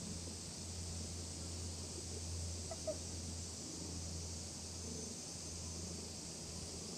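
Gray-and-white cat being stroked, making a low, steady pigeon-like purring coo that breaks off briefly every two to three seconds with its breathing. There is a small click about three seconds in.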